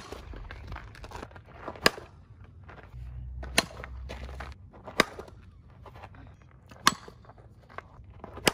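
Softball bat hitting softballs off a batting tee: a sharp crack of bat on ball about every one and a half to two seconds, five hits in all.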